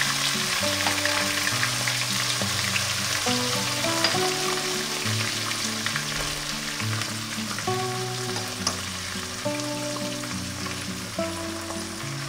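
Sliced onions sizzling steadily in hot oil in an aluminium pan, with small pops and crackles. Soft background music of held notes plays underneath.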